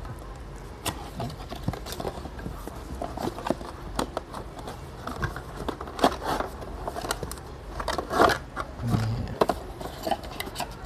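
Cardboard product box being opened and its packaging handled: irregular scraping, rustling and small clicks of cardboard and plastic.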